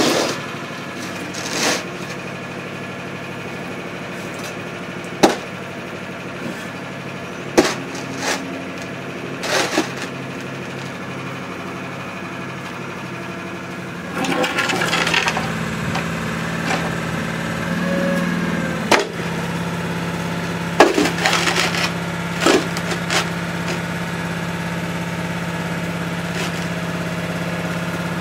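Concrete cinder blocks knocking as they are set down and stacked, a handful of sharp clunks spread through, over the steady hum of an idling truck engine.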